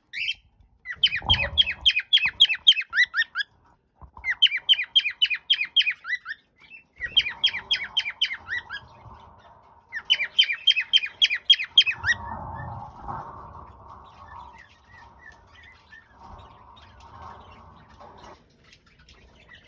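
Cockatiel calling in four bursts of fast repeated squawking notes, about five a second, each burst a couple of seconds long. After that come a softer, even noise and a few faint chirps.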